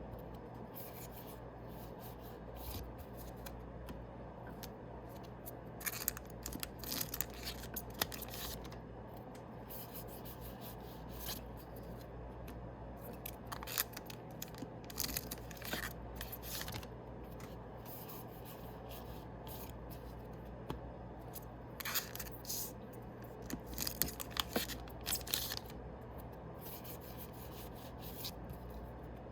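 Yu-Gi-Oh booster packs being opened and the cards handled: irregular short rustles, scrapes and crinkles of foil wrappers and card stock, coming in clusters, over a steady low hum.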